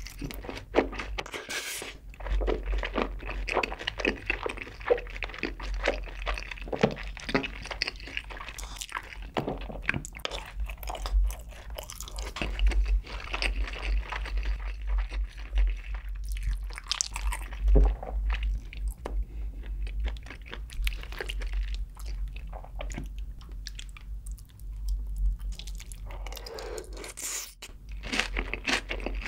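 Close-up chewing of sauced Korean fried chicken (yangnyeom chicken): crunchy, crackling bites of the fried coating, chewed with the mouth closed, in irregular clicks throughout.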